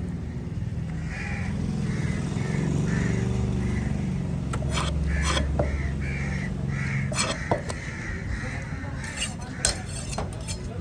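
Crows cawing in runs of short repeated calls, over a low murmur of voices, with several sharp knocks in the second half.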